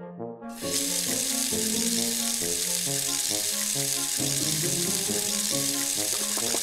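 Steady rush of running water from a toy vanity playset's faucet, switched on about half a second in, over background music with a stepped melody.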